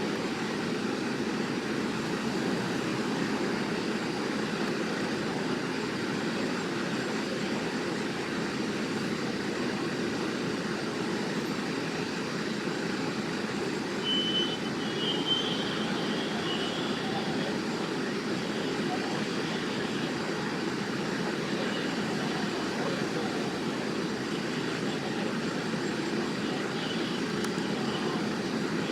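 Steady rumbling noise of vehicles, even throughout, with a short high-pitched chirp about halfway through.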